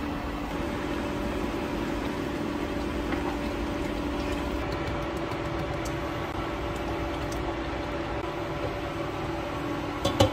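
A steady machine hum with a constant low tone, like a running appliance, and a few sharp clicks near the end.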